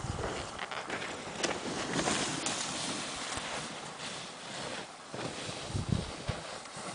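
Wind buffeting a camera microphone: a rushing, swelling noise with a few low thumps from gusts hitting the mic, the strongest a little before the end.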